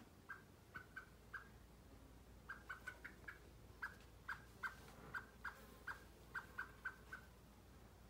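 Common blackbird giving short, clipped calls, about twenty in irregular runs, with a gap of about a second after the first four.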